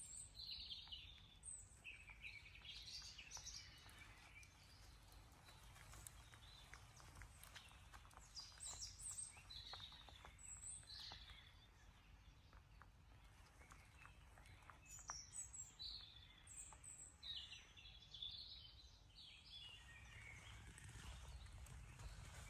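Faint birdsong: small birds chirping and twittering in short phrases that come in several bursts, over a steady low rumble.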